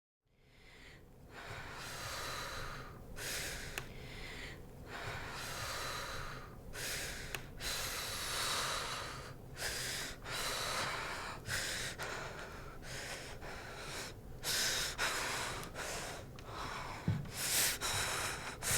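A person breathing heavily and raggedly, loud breaths in and out about once a second, with sharper gasps near the end.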